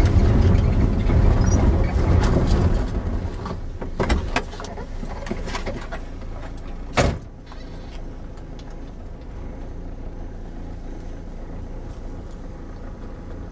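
Vehicle running over a rough dirt road, heard from inside the cabin: a loud low rumble that eases off after about three seconds into a quieter steady hum. A couple of knocks come around four seconds in, and a single sharp knock about seven seconds in.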